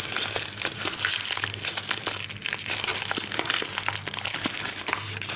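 Speckled paper wrapping being unfolded by hand, crinkling and rustling in a continuous run of small crackles.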